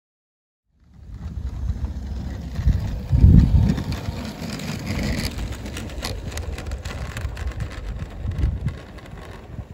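Garden-scale model diesel locomotive and its wagons running along the track, a light mechanical rattle with clicks over the rails, mixed with an irregular low rumble of wind on the microphone that is loudest about three seconds in. The sound starts abruptly about a second in.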